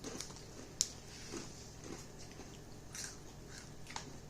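Someone chewing crunchy Blue Heat Takis rolled tortilla chips: scattered crisp crunches, the sharpest about a second in.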